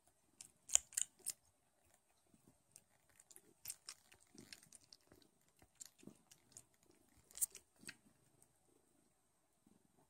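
Newborn Don Sphynx kittens suckling at their mother's teats: irregular smacking clicks, the sharpest about a second in and again after about seven seconds.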